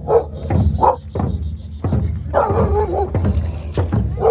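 A dog barking several times in short, sharp barks over a steady low hum, with a few scattered thuds.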